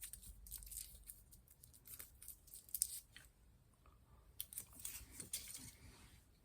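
Close-miked eating sounds: irregular soft crunches and mouth clicks, the loudest a little under three seconds in.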